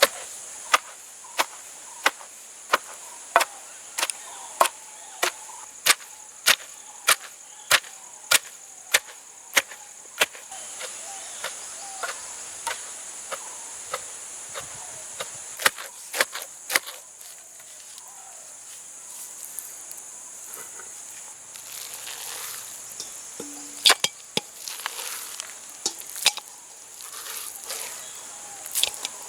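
A knife chopping on a wooden cutting board in a steady rhythm of just under two strokes a second, which breaks off about two-thirds of the way through into scattered knocks and handling sounds. A steady high-pitched insect drone runs behind.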